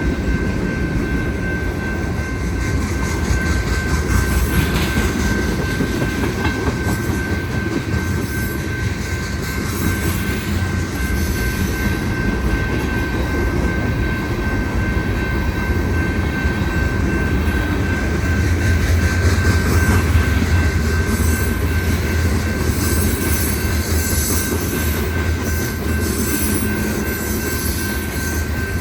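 Union Pacific manifest freight train's cars rolling past, a loud steady rumble of steel wheels on rail, with a thin, steady, high-pitched wheel squeal throughout.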